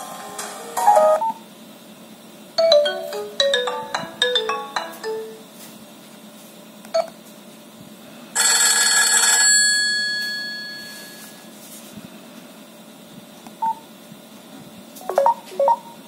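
A Nokia Asha 210 plays short previews of its built-in ringtones from its small loudspeaker, one snippet after another as the ringtone list is scrolled. There is a run of falling melodic notes, then a bright burst about eight seconds in that fades away over about two seconds, and a few quick notes near the end.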